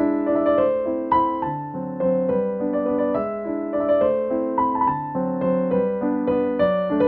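Background music: a piano playing a melody over chords, each note struck and fading.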